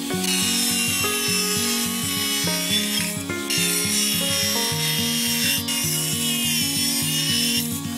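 Angle grinder with a cutting disc cutting through a ceramic tile: a steady, high grinding whine of the disc in the tile that breaks off briefly a few times. Background music with a stepping bass line plays under it.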